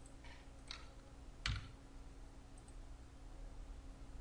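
A few faint computer mouse clicks, the sharpest about a second and a half in, over a low steady hum.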